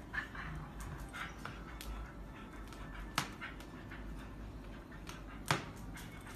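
Two dogs playing tug-of-war with a fabric dog bed on a tile floor, with faint dog whining. Two sharp clicks come about three seconds in and again two seconds later.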